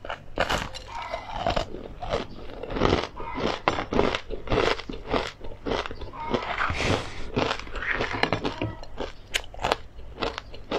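Crunching and chewing of a mouthful of fried perilla seeds, flaxseeds and pumpkin seeds in chili crisp: a steady run of sharp, crisp crackles with each bite and chew.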